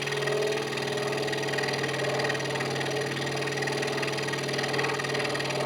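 Hegner Multicut 2S scroll saw running at a steady speed, its blade cutting through 40 mm thick cherry: an even, unchanging hum.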